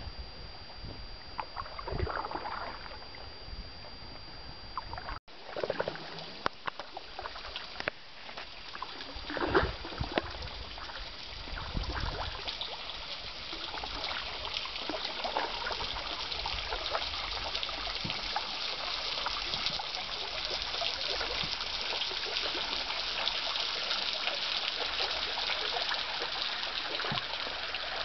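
River water trickling and lapping against a dugout canoe moving downstream, a steady rushing hiss that grows fuller in the second half. A few louder knocks sound in the first dozen seconds, and the sound breaks off for an instant about five seconds in.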